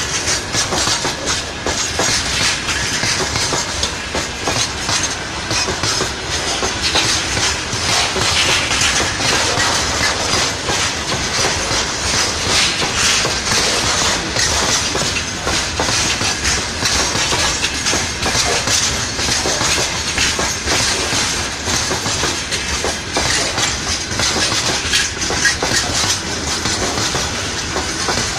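Freight train's open gondola wagons rolling past close by: a steady loud rumble with a continual clatter of wheels over rail joints.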